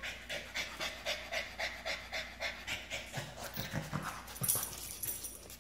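A dog panting quickly and evenly, about four breaths a second, while playing with a tennis ball.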